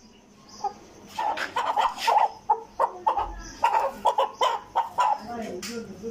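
Shamo Aseel rooster clucking in a quick run of short calls, several a second, starting about a second in and thinning out near the end.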